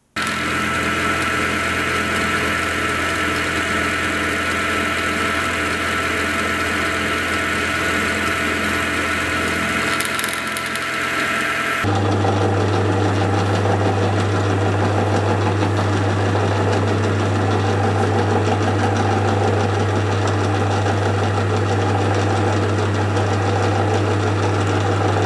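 Milling machine spindle running steadily with a high whine while the tap's flutes are milled; about twelve seconds in it gives way to a metal lathe running with a strong, steady low hum as the burr is cleaned off the tap's threads.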